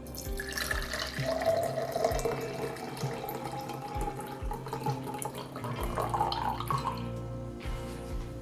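Water poured in a steady stream from an espresso machine's drip tray into a tall drinking glass, splashing, with a note that rises as the glass fills; the pour stops near the end.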